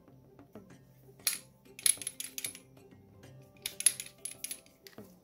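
Sharp metallic clicks and clinks in small clusters from the steel parts of a Remington RM380 pistol being handled, some with a brief high ring, over quiet background music.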